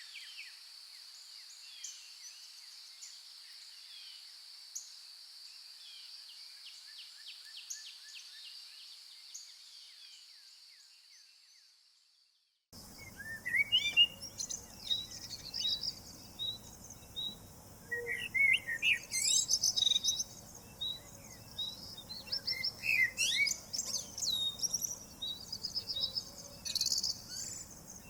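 Morning bird chorus in a forest: many small birds chirping over a steady high-pitched hum. The sound fades out to silence about twelve seconds in, then the birdsong resumes louder, with one bird repeating a short note about once a second among varied songs.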